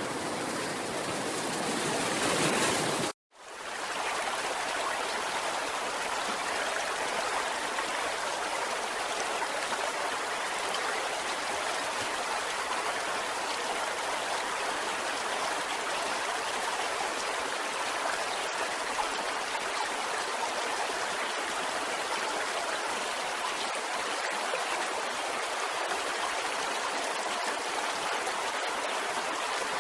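Water rushing steadily in an even hiss, with no rise and fall of separate waves. About three seconds in the sound cuts out for a moment at a splice and comes back.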